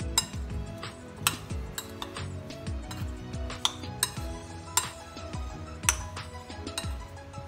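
Spoon stirring chopped onion, tomato and capsicum in a bowl, clinking sharply against the bowl about once a second, over background music.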